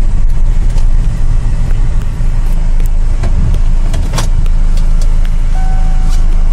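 A 2005 Kia Grand Carnival minivan moving slowly, with a steady low engine and road rumble inside the cabin and a few light clicks. About five and a half seconds in, a parking sensor starts beeping in short repeated tones as the van nears a wall.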